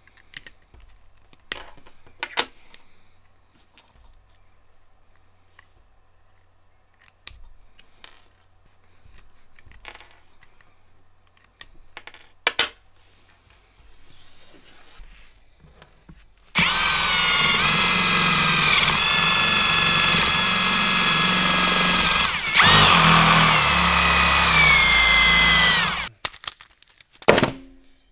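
Cordless drill spinning a wire brush against a nickel-finished metal spoon lure, stripping the old paint. It is preceded by faint clicks of handling. The drill runs loud and steady for about nine seconds, with a short break partway and its pitch falling as it winds down at the end.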